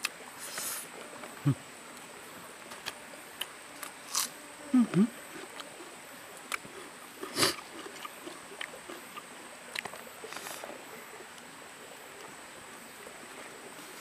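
Close-miked mukbang eating sounds: wet mouth clicks and smacks while chewing, and fingers mixing rice on a banana leaf. A couple of short deeper mouth sounds come about five seconds in, and one sharp louder click near the middle.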